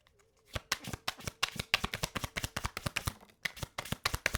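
Tarot deck being shuffled by hand: a fast, steady run of card clicks that begins about half a second in.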